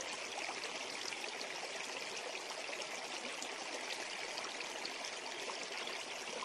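Steady, faint trickling of running water, an even hiss with no breaks.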